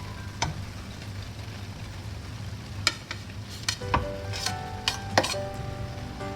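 A spoon scraping and knocking against a cooking pot while rice is spread in a layer over egg masala, with a low sizzle from the pot. The knocks come irregularly, several close together in the second half.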